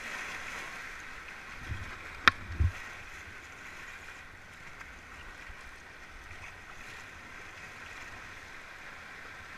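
Shallow rocky river rushing past an inflatable raft, a steady hiss of moving water. About two seconds in come a couple of dull thumps and one sharp knock, the loudest sound.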